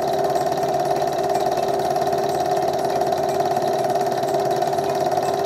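8mm cine projector running, a steady motor whir with a rapid, even clatter from the film-advance mechanism.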